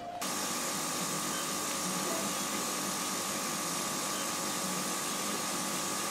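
Apollo 600 CO2 laser cutter running while its head cuts fabric: a steady airy hiss with a steady high whine over it, starting abruptly just after the start.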